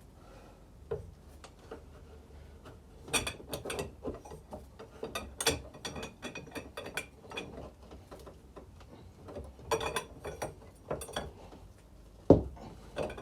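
Ratchet wrench clicking in short bursts on a tight, seized fixing while the rear beam comes off, with metal clinks between the bursts and a single loud metal knock near the end.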